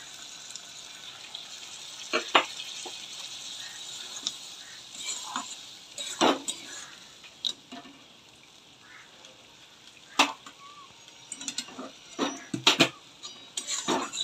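Boiled masoor dal hitting a hot kadai of fried onion and tomato and sizzling, the sizzle dying down after several seconds. A steel spatula stirs it, clinking and scraping against the pan every second or two.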